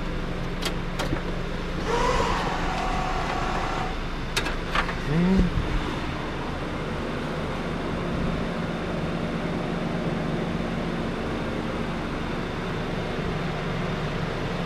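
Two Holley electric inline fuel pumps running together with a steady hum while the fuel system is primed. A few clicks come about four to five seconds in.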